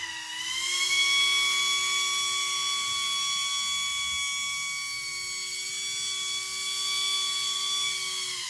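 Electric motor and air propeller of a Pro Boat Aerotrooper RC airboat running with a steady, high-pitched whine. The pitch holds at one speed, then falls as the throttle is let off near the end.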